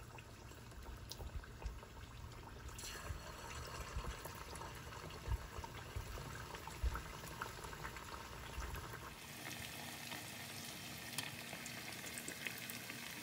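Pieces of marinated chicken karaage deep-frying in hot oil in a pot: a steady sizzle and bubbling with scattered crackles. The sizzle turns brighter and denser about nine seconds in.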